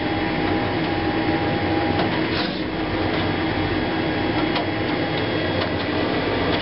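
HP DesignJet 510 large-format inkjet plotter running steadily through its colour calibration, printing and measuring graduated patches of its four inks. The mechanism gives off a steady tone that stops about two seconds in, with a few light clicks.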